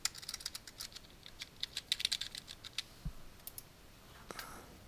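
Computer keyboard typing, faint: a quick run of keystrokes over the first three seconds, then a few isolated taps.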